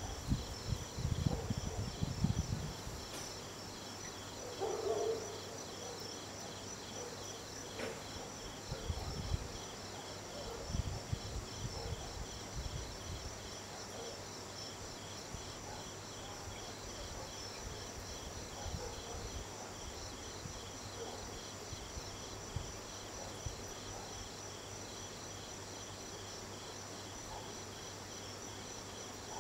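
Night insects, cricket-like, chirping in a steady, evenly pulsing chorus, with a few low rumbles in the first couple of seconds and again about ten seconds in.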